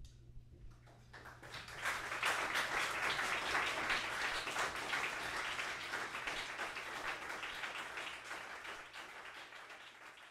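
Audience applauding at the end of a performance, starting about a second in, swelling quickly and then slowly dying away near the end.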